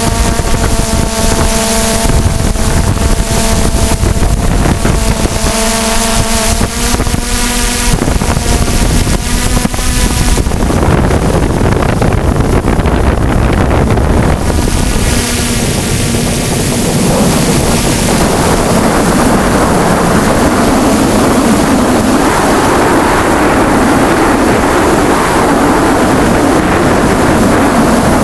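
DJI F550 hexacopter's electric motors and propellers whining at a steady pitch, picked up by the camera on board, with wind rushing over the microphone. About ten seconds in the steady whine gives way to a rougher rushing noise of wind and prop wash.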